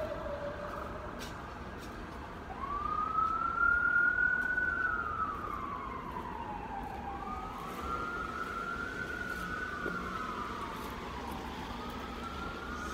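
Emergency vehicle siren wailing. It starts about two seconds in and slowly rises and falls in pitch, each sweep taking several seconds, over a steady low background rumble.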